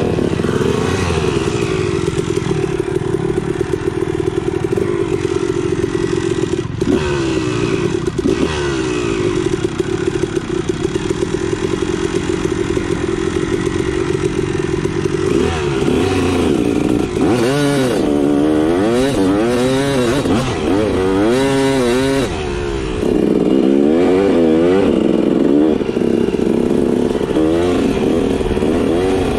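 Dirt bike engine running at steady revs while riding, then from about halfway revving up and down again and again as the throttle is opened and closed.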